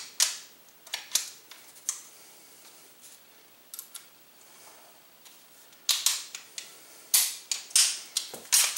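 Sharp metal clicks and light knocks of a Desert Eagle 1911 pistol's steel slide being worked onto the frame and lined up for the slide stop pin: a few clicks in the first two seconds, a lull, then a quicker run of clicks near the end.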